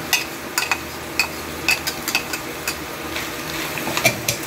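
Metal spatula clinking and scraping against a stainless steel pan as chicken, liver and onion are stirred, with sharp clinks about twice a second over a light sizzle of food frying in butter.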